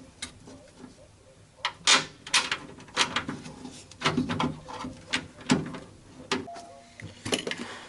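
Irregular sharp clicks and knocks of hand tools and metal door parts being handled inside a car door, about a dozen in all, starting about a second and a half in.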